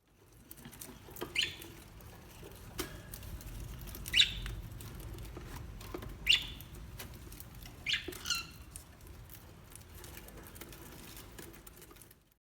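A small animal giving four short, high squeaks about two seconds apart, the last one doubled, over light pattering and scuffling.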